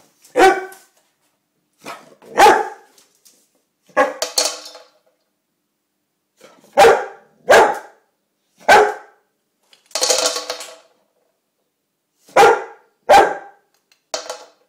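French mastiff (Dogue de Bordeaux) barking, about ten single barks spaced a second or two apart: a dog demanding more food.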